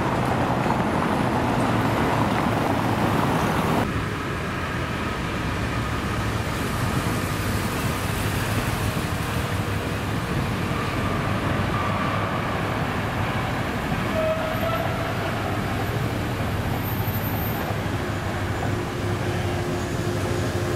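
Orange 1920s Peter Witt-type Milan tram rolling slowly along its track, a steady running rumble with a few faint whining tones. About four seconds in, street traffic noise cuts away to the tram's sound.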